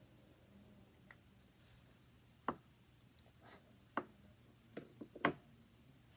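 A handful of short, sharp clicks and taps at irregular spacing, like small hard objects being handled and set down, the loudest near the end.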